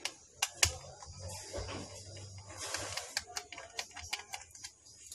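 Small screwdriver and fingers working at a laptop's hard-disk bay: a run of sharp clicks and taps on metal and plastic with some scraping, the loudest click about half a second in.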